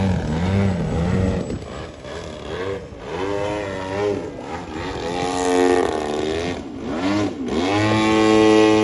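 Radio-controlled aerobatic model airplane's motor and propeller, revving up and down about once a second as the throttle is worked in a nose-up hover. Near the end it climbs to a steady, high-pitched full-throttle run as the plane flies off.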